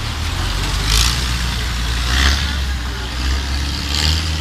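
An engine running with a steady low drone, with swells of hiss about a second in, a little after two seconds, and near the end.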